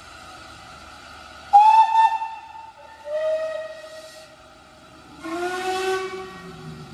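Steam locomotive whistles sounding three times in turn, each blast at a different pitch: a higher one about a second and a half in, a lower one about three seconds in, and a deeper, fuller one near the end, over a faint steady steam hiss. Three whistles from the three engines of a triple-header, the exchange of whistles before a multiple-headed train starts away.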